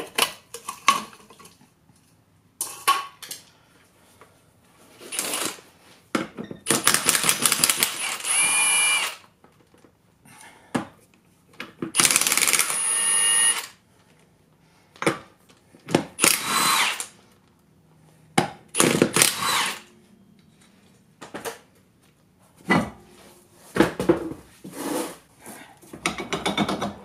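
Milwaukee cordless impact wrench run in repeated bursts, the longest two or three seconds, spinning the lug nuts off a golf cart wheel. Short knocks and clanks come between the bursts.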